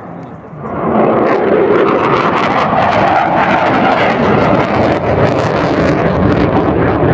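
Su-22 fighter-bomber's single Lyulka AL-21F turbojet as it passes overhead in a display turn: the jet noise swells sharply about a second in, then stays loud and steady with a ragged crackle.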